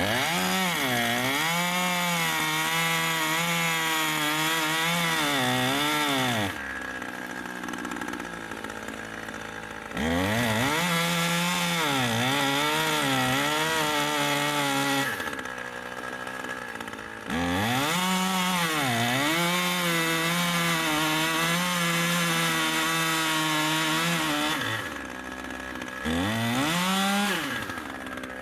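Chainsaw cutting into oak wood at high revs, its engine pitch dipping and recovering as the chain bites. It makes four cuts, easing off to a quieter, lower run between them.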